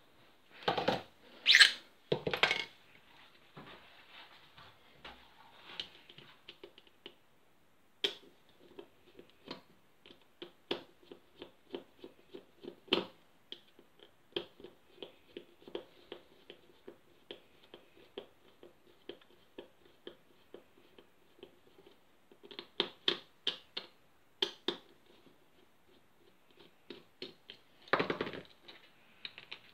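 Small plastic and metal airsoft rifle parts handled and set down on a tabletop: a long run of light clicks and taps, with louder knocks and rattles about a second in and again near the end.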